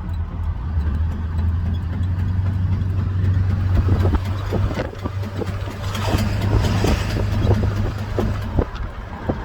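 2000 Ford F-250 running with a steady low drone, joined from about four seconds in by irregular clunks. The owner says it is not the engine and suspects a U-joint or the transfer case, hoping it is not the ring and pinion.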